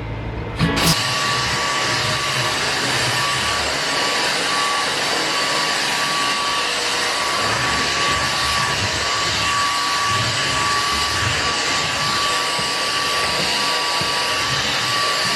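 An electric appliance's motor and fan running steadily with a constant high whine, starting with a click about a second in.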